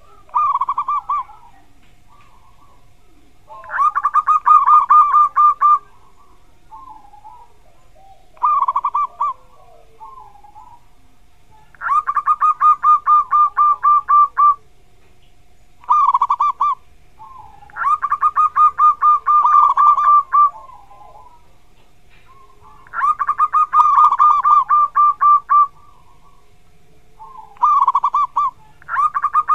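Zebra dove (perkutut) singing its cooing song over and over. Each round is a short opening phrase, then a long run of quick, evenly pulsed 'kuk' notes lasting two to three seconds. Five such rounds are heard.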